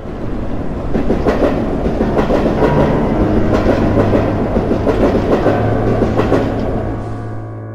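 Electric train passing: wheels clattering over rail joints, building up about a second in and fading away near the end. Steady background music continues underneath.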